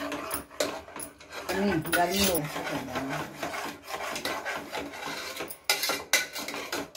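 Steel ladle stirring a thick masala gravy in an aluminium pressure cooker, scraping continuously against the pot's bottom and sides, with a few sharper knocks of the ladle on the pot about six seconds in.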